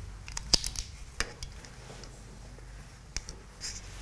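Small hard objects handled on a table: a few sharp clicks and light taps, with a short soft hiss near the end, over a low steady room hum.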